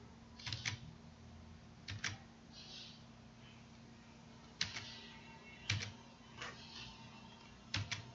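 Sharp computer mouse clicks, some in quick pairs like a press and release or a double-click: a pair about half a second in, another near two seconds, single clicks a little before and after five seconds, and a last pair near the end. A faint steady hum sits underneath.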